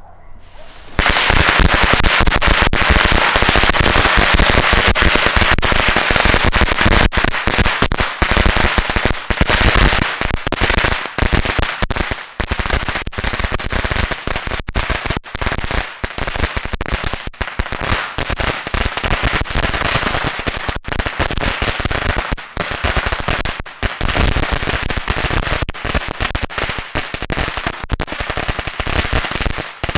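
A strip of thousands of Black Cat firecrackers going off in a continuous rapid crackle of bangs, starting suddenly about a second in. The bangs are densest at first and come as more separate cracks later on.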